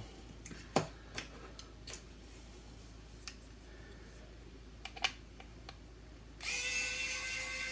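A few light clicks and taps from handling small parts, then about six seconds in a Wowstick cordless precision screwdriver's small motor starts and spins with a steady whine.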